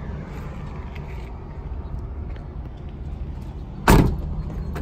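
A steel truck cab door swung shut with one loud thud about four seconds in, followed by a smaller latch click, over a steady low rumble.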